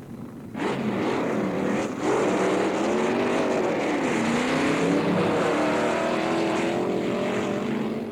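A motor vehicle engine sound effect: the engine runs loudly with its pitch wavering up and down. It starts abruptly about half a second in, breaks off briefly near two seconds, and stops just before the end.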